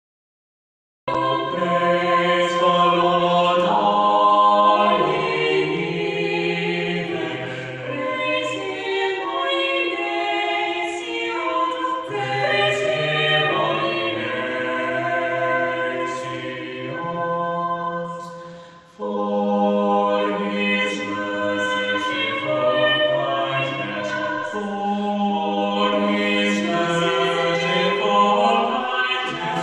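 A vocal trio of two women and a man singing a cappella in harmony, starting about a second in, with a short break between phrases about two-thirds of the way through.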